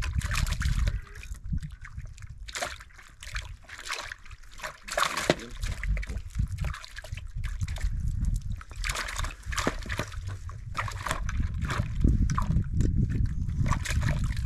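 Water sloshing and trickling, with irregular small splashes and knocks as a mackerel is lifted out of the sea on a sabiki line and handled over a tub.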